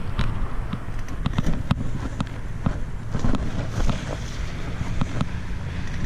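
Wind buffeting the microphone as a steady low rumble, with scattered light knocks and rustles.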